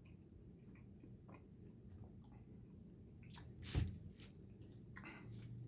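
Faint wet mouth clicks and squishes of someone chewing a chewy chili-coated mango gummy candy, with one louder thump about two-thirds of the way through.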